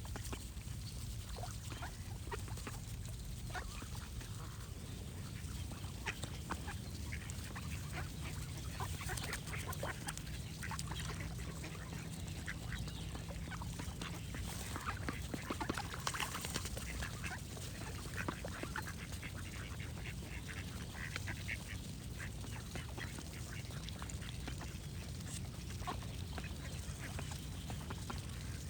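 Ducks quacking again and again in short, scattered calls, with birds singing behind them over a steady low hum.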